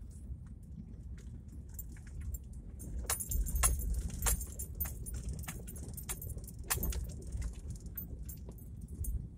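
Car driving over a cobblestone road, heard from inside the cabin: a steady low rumble from the tyres and running gear, with many sharp rattles and clicks on top that are thickest about three to four and a half seconds in and again near seven seconds.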